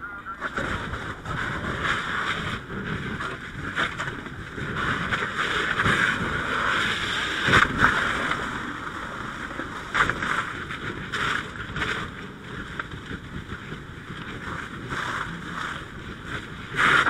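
Fire hose nozzle flowing a handline stream: a steady rushing hiss of water spray, with scattered sharp knocks and cracks. It swells about halfway through and again near the end.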